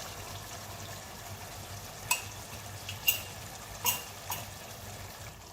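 Chicken curry sizzling in a karahi, with a utensil clicking against the pan four times.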